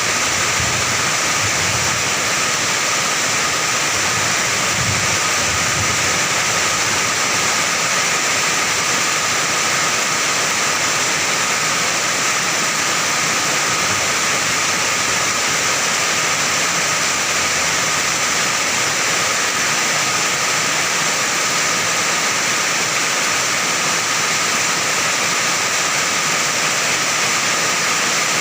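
Heavy rain pouring onto an iron roof: a steady, dense hiss of water drumming on the metal sheeting, unbroken throughout.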